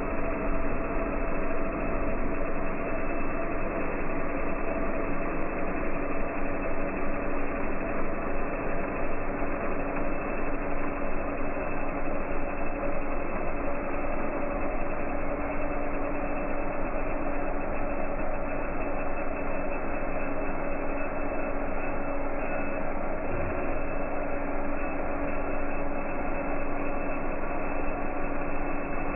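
M3D 3D printer running a print: its stepper motors hum and buzz steadily, with a couple of steady tones held throughout.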